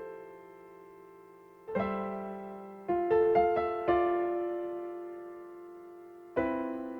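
Slow, gentle solo piano music. Sparse notes and chords are struck and left to ring and fade away, with a short run of notes a few seconds in and a new chord near the end.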